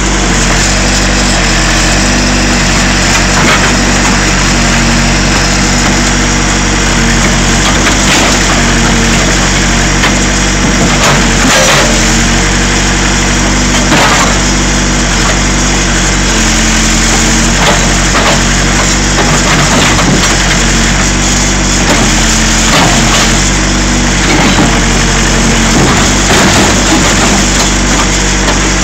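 Diesel engine of a 1987 Case 580 Super E backhoe running steadily under load while its bucket crushes a steel pickup truck box, with irregular cracks and crunches of bending and breaking metal every few seconds.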